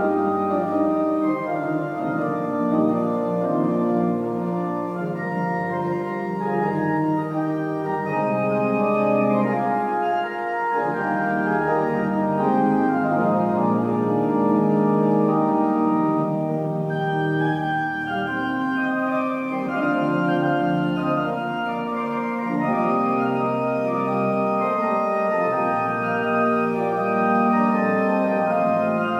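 Organ playing slow, sustained chords that change every few seconds, with the long ring of a large church.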